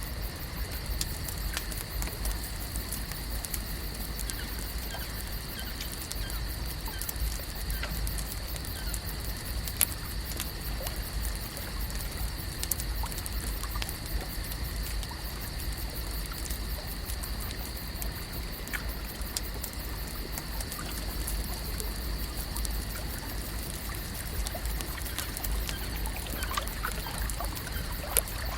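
Lake shore ambience: water gently lapping and trickling, with scattered light clicks over a steady high hum and a low rumble.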